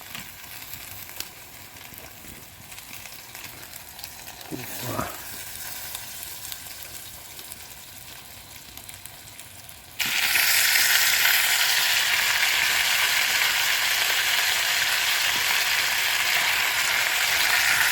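Snakehead fish frying in hot oil in a pan. A faint hiss for the first ten seconds, then a loud, steady sizzle starts abruptly as the fish goes into the hot oil.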